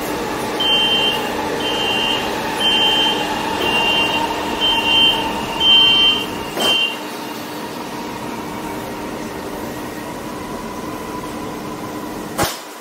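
Metro car door-closing warning beeping six times, about once a second, followed by a thud. A steady electrical hum from the train runs underneath, and a sharp knock comes near the end.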